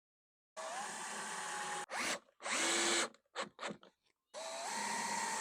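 Cordless power drill driving screws into pallet-wood slats: the motor spins up and runs, then comes a longer, louder burst about two and a half seconds in, several quick trigger taps, and another steady run near the end.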